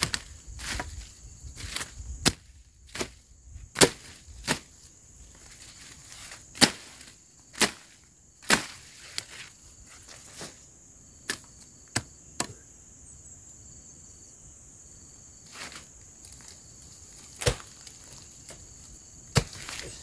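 Machete strokes chopping through weeds and brush: sharp, irregular chops, with a pause of a few seconds about two-thirds of the way through. A steady high-pitched insect buzz runs underneath.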